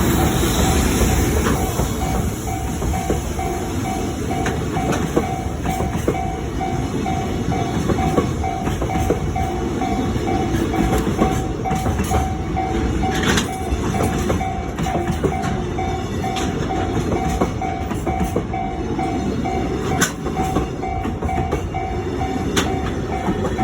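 Freight container train rolling past a level crossing, its wheels clattering with scattered sharp clicks, while the crossing's warning bell rings on and on at an even pace of about two strokes a second.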